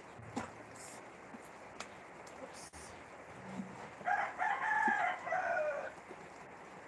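A rooster crows once, starting about four seconds in and lasting about two seconds in broken segments. Before it, a sharp click right at the start and a few faint taps come from a kitchen knife working at a tube-shaped coin bank.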